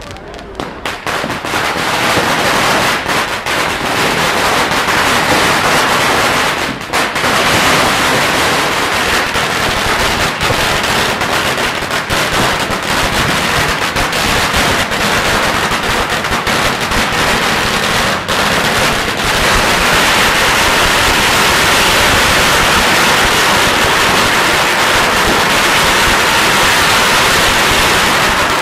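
Strings of Chinese firecrackers going off in a dense, rapid crackle of bangs. A few scattered pops at first run into a continuous crackle within the first couple of seconds, which stops suddenly at the very end.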